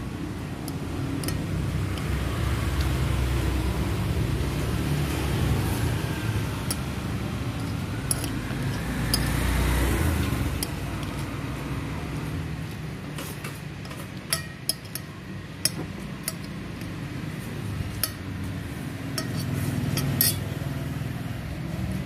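Metal spoon and fork scraping and clinking against a glass plate as the last of a meal is eaten, with sharp clinks coming thickest in the second half. Under it runs a steady low background rumble that swells about halfway through.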